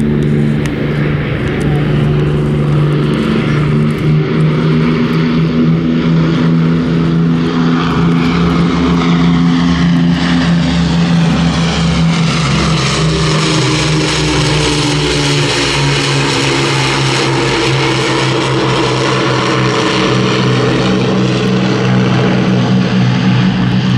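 A Hawker Hurricane and a Supermarine Spitfire flying past together, their propeller-driven piston engines making a steady deep drone. About a third of the way in, a slow swishing sweep sets in over the higher tones as the pair pass.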